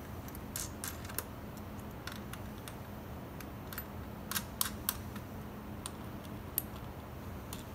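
Wing nuts being screwed by hand onto the studs of a rotary tumbler canister's metal lid: scattered light metallic clicks, with a cluster of sharper ones about four to five seconds in, over a faint low hum.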